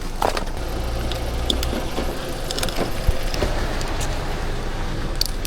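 Vehicle engine idling, with scattered clicks and knocks, the sharpest about three seconds in.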